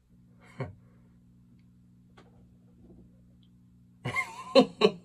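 A low steady hum in a quiet room, with a brief soft sound about half a second in, then a man's voice breaking in with short bursts about four seconds in.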